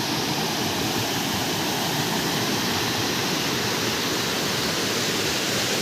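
Waterfall: a steady rush of falling water, unbroken throughout.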